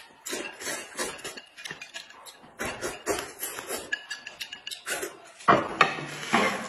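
Close-up eating sounds: noodles slurped and chewed from a plate, with light clinks of chopsticks and dishes. The sound gets louder and busier about five and a half seconds in, as the plate comes down onto the table.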